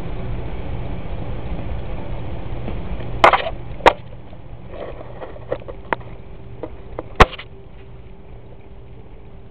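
Handling noise on the camera as a cat paws at it and tugs its strap: a handful of sharp knocks and scuffs between about three and seven seconds in, over a steady low hum.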